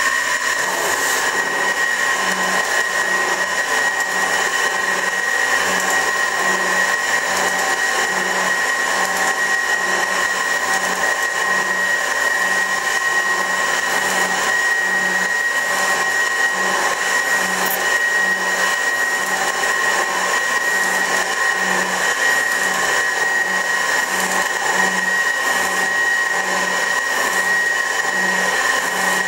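Metal shaper (24-inch Värnamo) running with a steady machine hum and a low pulse about once a second as the ram strokes back and forth, sped up to double speed.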